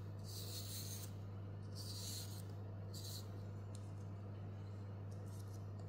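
Vegetable peeler scraping down white asparagus spears in several short strokes, the strongest near the start and around two seconds in, over a steady low hum.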